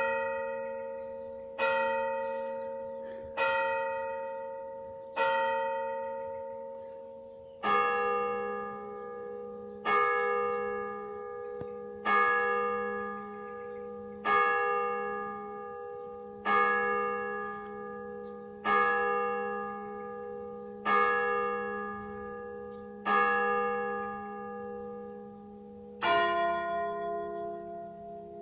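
Church tower clock striking on its bells: four quarter-hour strokes on one bell (b′), marking the full hour, then eight hour strokes on a lower bell (a-flat′), each stroke ringing on and dying away before the next. Near the end the deepest bell (f′) sounds twice.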